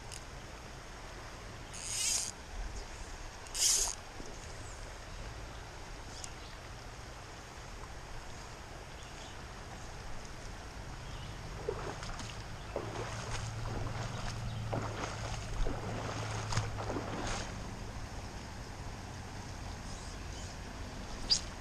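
Steady hiss of a shallow river, with two short high swishes of fly line being cast a couple of seconds in, about two seconds apart. In the middle there is a run of soft water splashes and knocks.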